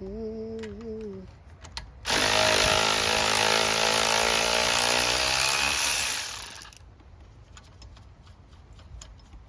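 A power tool runs for about four seconds, its motor pitch sagging slightly, then winds down and stops. Faint light clicks follow.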